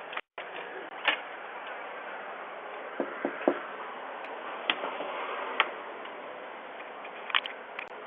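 Steady hiss with several sharp clicks scattered through it, heard through a doorbell camera's microphone.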